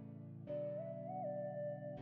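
Soft instrumental background music: a simple melody that steps up and back down over held chords, with a new phrase starting about half a second in.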